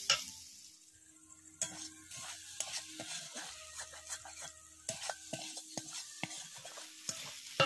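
Metal spatula scraping and knocking irregularly against a metal kadai while stirring taro stolons, over a light sizzle. The cooking water has boiled off and the stolons are being dry-fried.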